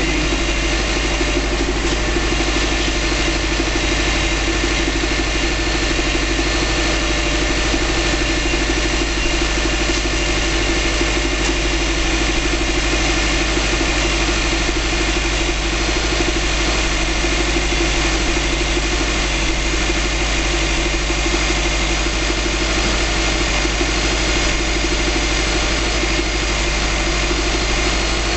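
The freshly rebuilt EJ255 2.5-litre turbocharged flat-four of a 2005 Subaru Legacy GT idling steadily on its first run after a DIY rebuild.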